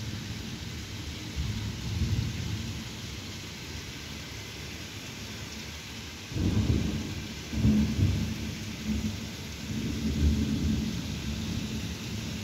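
Thunderstorm: steady rain hissing, with a low roll of thunder about two seconds in, then a sudden louder peal of thunder about six seconds in that rumbles on for several seconds.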